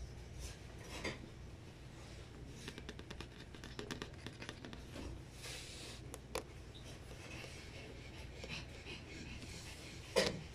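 Faint, scattered clicks and scratches from Boston terrier puppies moving about on a shag rug, with a quick run of fine ticks a few seconds in and a single louder thump near the end.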